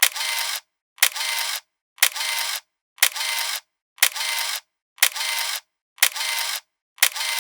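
A sharp click followed by about half a second of hiss, repeating evenly about once a second with silence between.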